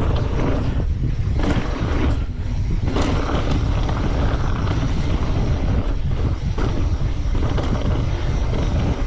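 Wind buffeting the microphone of a camera on a mountain bike speeding down a dirt trail, over the rush and rattle of the bike's tyres and frame on the ground, with a few sharp clacks as it hits bumps.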